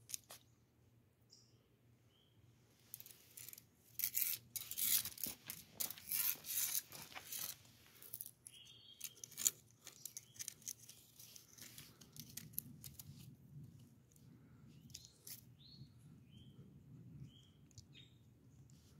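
Scratchy rustling and scraping of a twig dragged and batted over rough, gritty ground as a cat plays with it, busiest from about three to eight seconds in. Small bird chirps sound faintly now and then in the second half.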